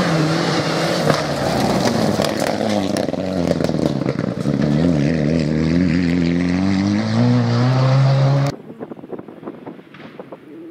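Mitsubishi Lancer Evolution rally car's turbocharged four-cylinder engine revving hard as it drives past on gravel. The pitch dips and climbs again as it comes off and back on the throttle, with stones rattling under the tyres. About eight and a half seconds in it cuts off abruptly, leaving quieter wind noise on the microphone.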